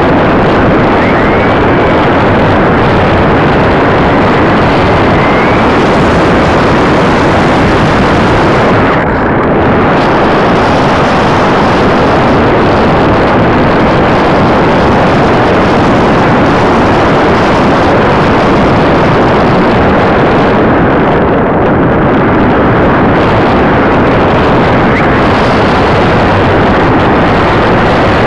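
Loud, steady rushing of airflow over the onboard camera microphone of an RC glider in flight, thinning briefly twice.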